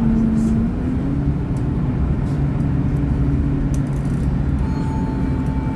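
Bus cabin, heard from inside while the bus is driving: steady low engine and road rumble, with the engine note shifting about a second in.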